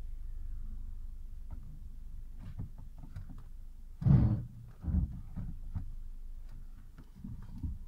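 Opel Vectra's engine idling, a steady low rumble heard inside the cabin, with faint clicks and two dull thumps about four and five seconds in.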